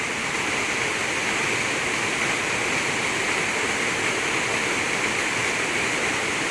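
Waterfall pouring, a steady, unbroken rush of water.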